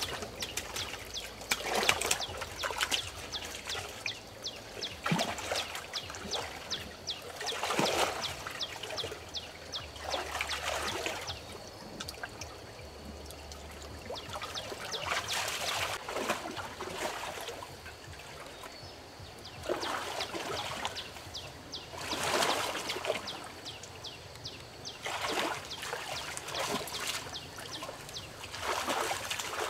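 Shallow water splashing and trickling in short, irregular bursts every one to three seconds.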